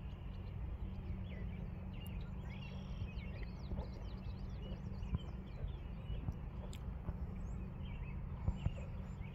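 Many birds chirping and singing across the water, short high calls and sweeps over a steady low rumble.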